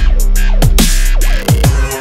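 Loud electronic dance music in a dubstep or drum-and-bass style, with a deep steady bass and punchy drum hits that fall in pitch.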